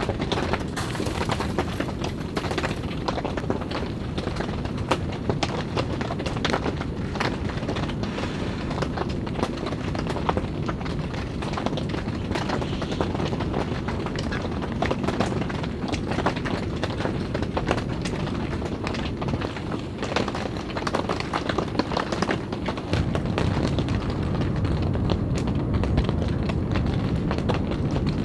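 Rain falling on a tent's fabric roof and walls: a steady patter of countless drops with many small ticks, getting a little louder and fuller in the last few seconds.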